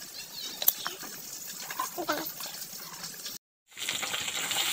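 Fish frying in hot oil in a kadai: a steady sizzling hiss that starts after a brief dropout about three and a half seconds in and grows louder. Before it there is only quiet background noise with a click and a faint short call.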